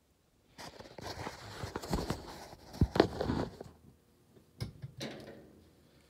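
Handling noise from a phone being moved and set in place: rustling and scraping for about three seconds, with two sharp knocks near the middle that are the loudest sounds, then a single knock and a brief rustle.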